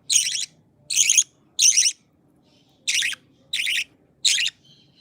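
Pet budgerigar giving short, high chirps, six in all, each about a third of a second long with short pauses between.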